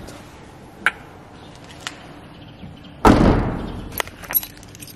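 A car's boot lid slammed shut about three seconds in: one loud thud with a short ringing tail. A few light clicks and knocks come before it, and two sharper clicks follow just after.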